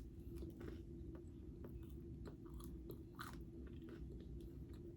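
A person chewing whole wheat sourdough toast close to the microphone: faint, irregular crunchy bites and chews.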